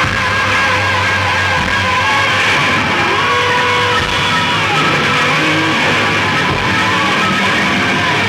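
Noise-rock band playing live: loud electric guitars holding long droning and feedback tones, some sliding slowly in pitch, over a dense wash of distortion.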